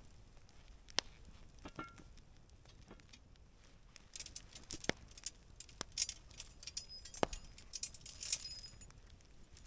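Steel chain of a campfire cooking tripod clinking and jangling as it is handled by hand, with single sharp clinks early on and busier jangling from about four seconds in.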